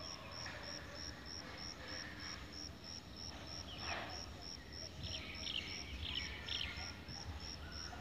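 Trackside ambience: a high chirp repeats evenly about three times a second, and birds give a few short calls about halfway through, over a low rumble.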